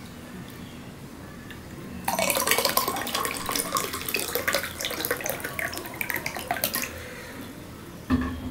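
Water poured from a plastic bottle into a drinking glass, splashing for about five seconds starting two seconds in, followed by a short thump near the end.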